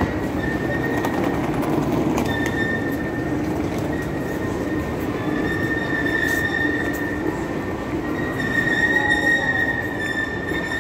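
Train running with a steady rumble and a high, held wheel squeal that comes and goes and grows louder in the second half.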